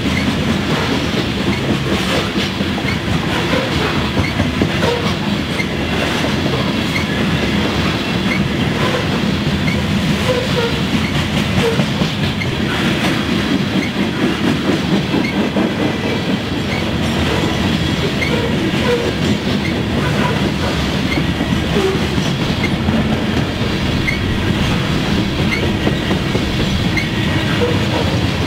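Freight train of covered hopper cars rolling past close by: a steady rolling noise with the clickety-clack of wheels over the rail joints and occasional brief squeaks.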